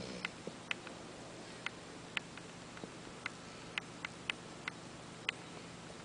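A sleeping pet snoring: about a dozen short, high, squeaky clicks at irregular intervals, with a brief lower snort right at the start.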